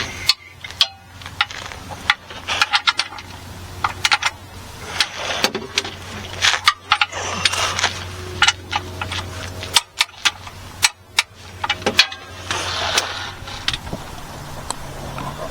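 Irregular metallic clicks and knocks of hand tools working the oil drain plug back into the oil pan, over a steady low hum.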